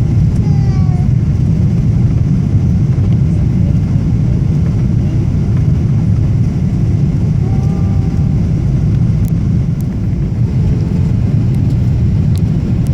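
Airliner cabin noise: a steady, loud, low rumble of the engines and airflow heard from inside the passenger cabin.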